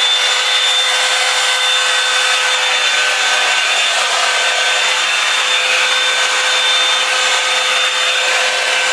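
Revlon One-Step hair dryer brush running on its cool setting: a steady, kind of loud rush of air with a high motor whine.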